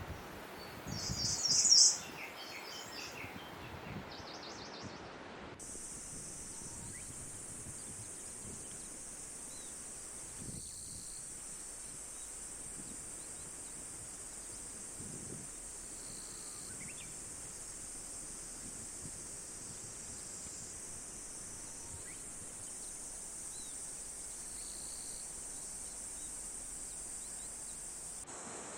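Outdoor nature ambience: a bird chirps loudly in the first two seconds, with weaker calls after it, then a steady high-pitched insect drone sets in at about six seconds and runs on over a soft background rush.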